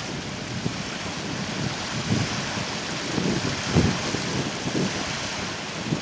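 Wind buffeting the microphone in irregular low gusts, the strongest about four seconds in, over a steady hiss of small waves on the shore.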